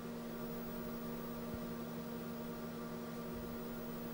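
Steady hum with a faint hiss from a running TRS-80 Model 16B computer, its fans and power supply running while XENIX boots.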